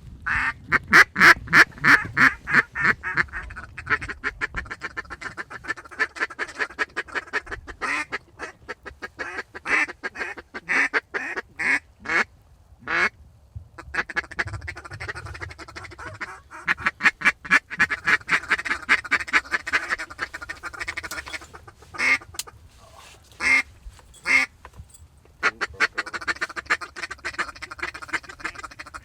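Ducks quacking in rapid, loud runs of short quacks, several bursts with brief lulls between them.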